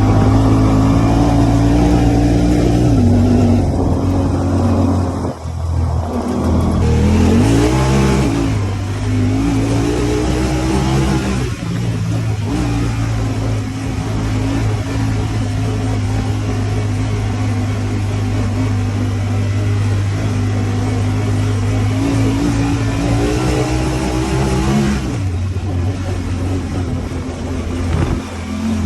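Honda Talon 1000R side-by-side's parallel-twin engine running under load, its pitch dropping about three seconds in. It revs back up around seven seconds, holds steady for a long stretch, then climbs slightly and eases off near the end.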